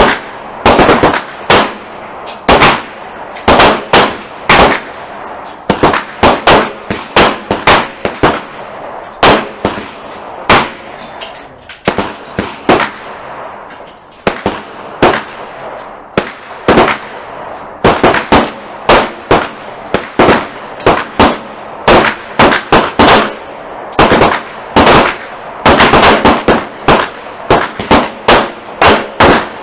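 Several handguns firing at once along a shooting line, the shots coming unevenly and often overlapping, one or two a second with short lulls, each shot ringing briefly. This is a timed course of fire in a combat pistol match.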